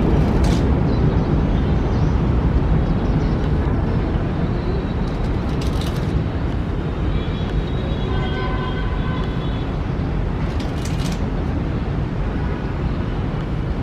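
Steady low rumble of outdoor vehicle noise, with a few faint brief tones about halfway through.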